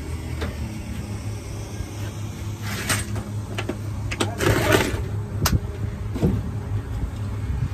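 A steady low rumble, with rustling and a few sharp knocks from something being handled close to the microphone, loudest about three seconds in and again between four and five seconds.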